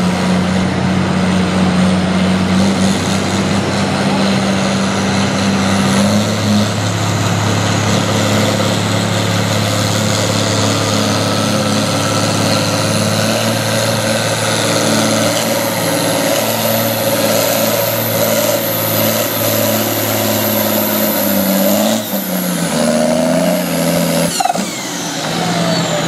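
John Deere 4020 diesel tractor engine running hard under full load as it drags a pulling sled. The engine note drops lower about six seconds in as the load builds, and a high whine climbs slowly over the pull. Near the end the engine is throttled back and its pitch falls.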